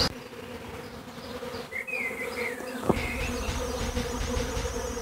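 A steady hum of many honeybees buzzing in flight, with a short chirping call about two seconds in.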